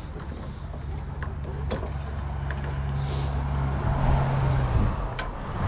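A vehicle engine running with a steady low hum that stops a little under five seconds in. A few sharp metal clicks and taps sound over it.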